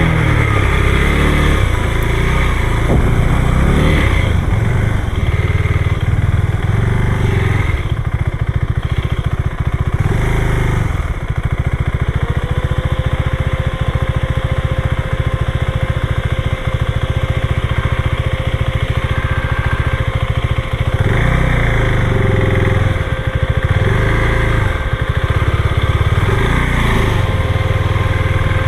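Motorcycle engine running steadily, with a thin steady tone that joins about twelve seconds in.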